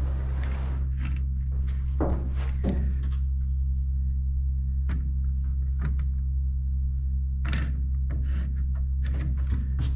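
Scattered knocks, taps and clicks as a polished stainless windshield header molding is handled and pressed onto its clips on the windshield frame of a 1960 Chevrolet Impala convertible, over a steady low hum.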